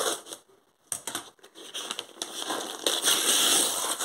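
Scissors cutting through brown kraft wrapping paper, then the paper crackling as it is torn off a cardboard box, with a longer, louder stretch of tearing near the end.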